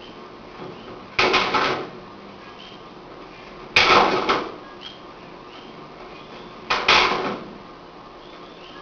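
Three short flurries of hand slaps and strikes from a two-person Jeet Kune Do trapping-and-hitting drill, each a quick run of several hits lasting under a second, about a second, four seconds and seven seconds in.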